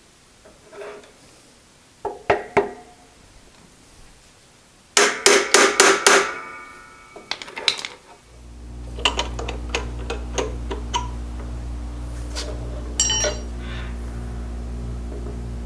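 A few sharp metal clanks, then a quick run of ringing metal knocks. About halfway through, the 4x6 horizontal bandsaw's electric motor starts and runs with a steady hum, with light ticks over it.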